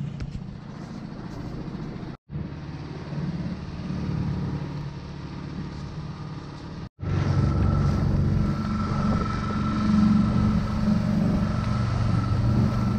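Small outboard motor on an inflatable dinghy running steadily underway. The sound cuts out briefly twice, and after the second break it runs louder.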